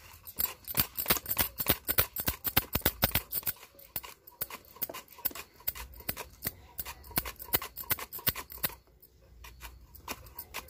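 Peeled raw banana being pushed back and forth across a plastic mandoline slicer's metal blade: a quick, even run of slicing strokes, about four or five a second, that pauses about nine seconds in before a few more strokes near the end.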